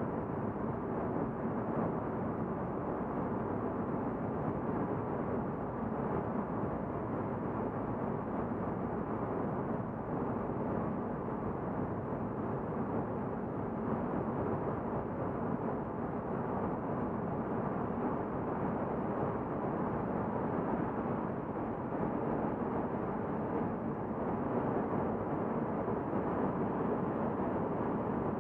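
Volvo S40's in-cabin road and engine noise while cruising steadily through a road tunnel: an even, muffled rumble with no sharp sounds.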